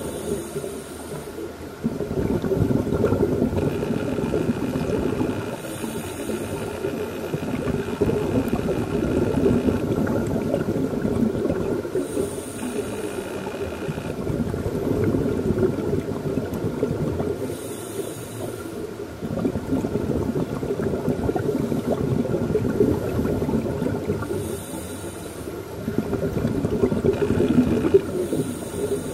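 Scuba regulator breathing heard underwater: long stretches of rumbling exhaust bubbles alternating with short hissing breaths in, about one breath every six seconds.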